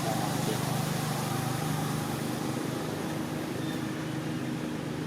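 Steady low mechanical hum, like a motor running, with a higher steady tone joining about three seconds in.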